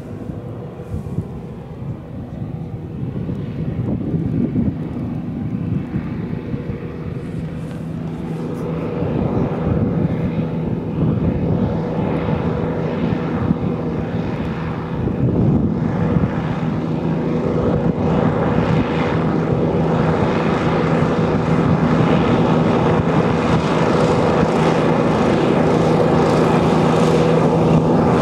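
Hovercraft engine and caged air propeller running steadily with a deep hum and propeller rush, growing louder as the craft comes closer.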